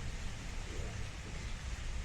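Rolling thunder: a low, uneven rumble over a steady hiss.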